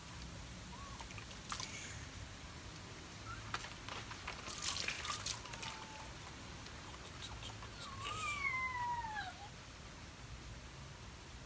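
Puppy whimpering while being bathed: a few short whines, then one long falling whine about eight seconds in. Water splashes and sloshes as it is scrubbed, mostly between about three and six seconds in.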